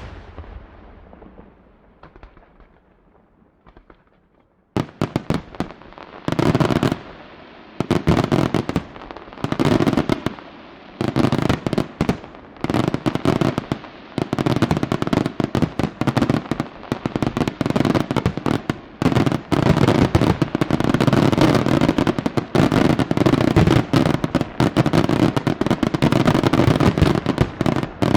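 Fireworks display: a heavy bang echoes away, then about five seconds in rapid volleys of sharp reports and crackling begin. They come in short rolls, then merge into a continuous dense barrage that grows louder toward the end.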